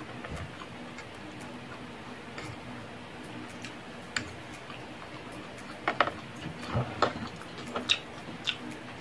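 A metal fork tapping and scraping against a tray while gathering noodles. There are scattered light clicks, with a run of sharper clicks in the second half, over a faint steady hum.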